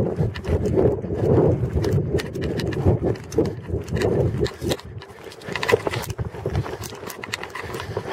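Hoofbeats of a ridden horse moving at a brisk gait, heard from the saddle, in a steady rhythm that grows softer after about five seconds.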